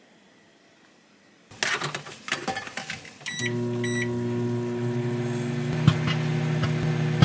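Rustling and clattering of handling, then two short electronic beeps as an electric kitchen appliance is switched on, followed by its steady hum.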